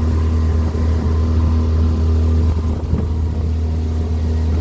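Motorboat engine running steadily under way, a low even drone.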